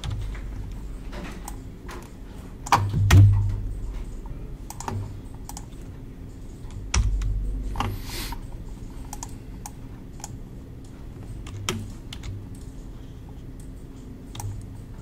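Irregular clicking of a computer keyboard and mouse, with two louder thumps about three and seven seconds in, over a low steady hum.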